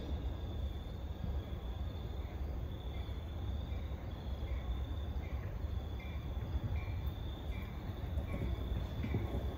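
Insects, crickets among them, calling: a steady high trill with a shorter chirp repeating about twice a second, over a low steady rumble.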